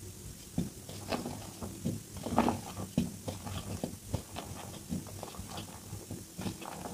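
A block of reformed gym chalk crushed and crumbled in the hands into loose chalk powder: a run of soft crunches and crackles, the loudest about two and a half and three seconds in. Played back at double speed.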